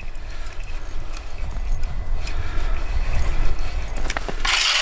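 A pike being hauled in by hand through an ice-fishing hole: a low rumble and faint ticks of line handling. Near the end comes a short splash as the fish comes up through the water in the hole.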